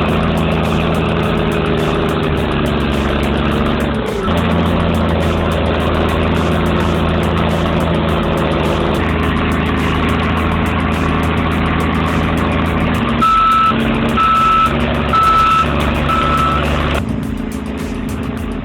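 Caterpillar D7R Series II bulldozer's 3176 diesel engine running steadily. About two-thirds of the way through, its reversing alarm beeps four times, evenly spaced about a second apart.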